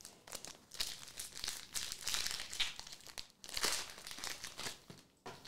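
Foil Pokémon Surging Sparks booster pack crinkling as it is handled and torn open: a run of crackly rustles that dies away near the end.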